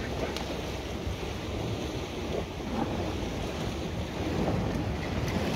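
Wind buffeting the microphone over the steady wash of sea waves against shoreline rocks.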